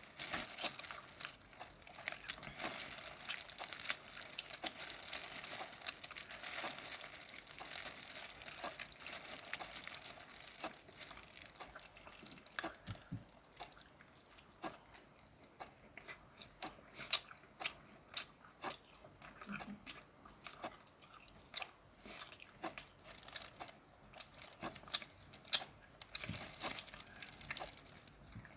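Steamed shrimp being handled and eaten close to the microphone: a dense crackling rustle for the first ten seconds or so, then chewing with separate wet clicks and smacks.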